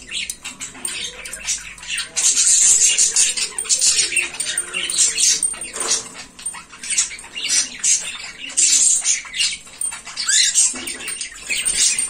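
Pet cockatiels making a run of short, scratchy, hissing calls and clicks, with a brief rising chirp near the end.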